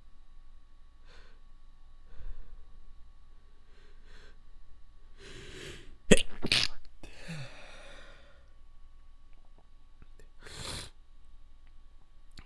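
A person's wet, stifled sneezes. Short catching breaths and a building inhale lead to two sharp, held-in sneezes about half a second apart, roughly six seconds in, followed by a breathy release. Another short breath bursts out near the end.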